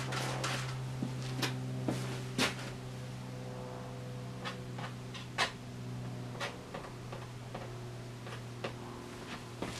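Short, irregular taps and scrapes of a painting tool dabbing oil paint onto a taut stretched canvas on an easel, over a low steady hum.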